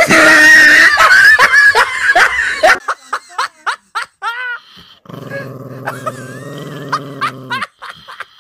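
Loud laughter for about the first three seconds. Then a small Chihuahua-type dog gives short high whines and yips, and from about five seconds in growls steadily for a couple of seconds.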